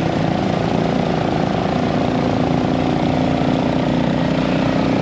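Motorcycle engine running steadily, with its even hum holding pitch and a rough noise over it.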